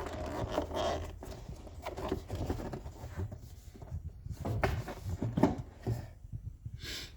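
Irregular clicks and knocks of hand tools: a socket wrench working on small bolts and parts being handled, with a short hiss of noise near the end.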